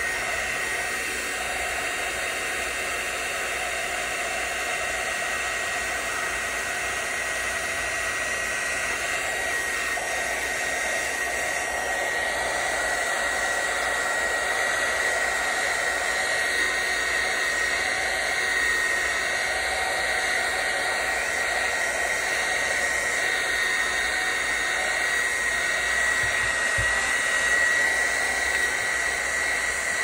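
Hot-air heat gun blowing steadily, with a thin high whine running through it, used to heat a phone's back glass and soften its adhesive.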